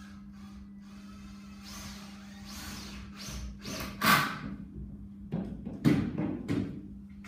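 Hand work on a timber frame: rustling and scraping, a sharp knock about four seconds in, then a cluster of wooden knocks and thuds near the end, over a steady low hum.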